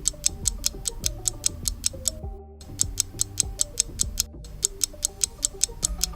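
Meizu phone ringtone playing: a fast, clock-like ticking about six times a second over a low, stepping melody, with the phrase breaking off briefly about two and four seconds in.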